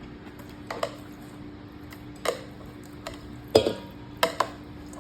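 Kitchen utensils clinking and tapping against dishes while food is served out, about six short sharp knocks with the loudest about three and a half seconds in, over a faint steady hum.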